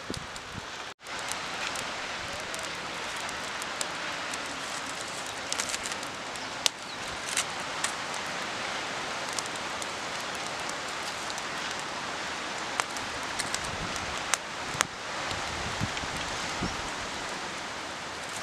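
Food sizzling as it fries in a pan, a steady hiss with scattered sharp pops and crackles.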